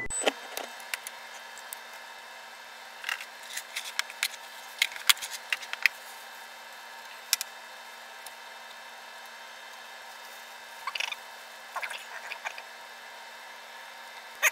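Clicks and light rattling of test leads and alligator clips being handled and reclipped on a valve amplifier chassis, in scattered groups, over a faint steady hum.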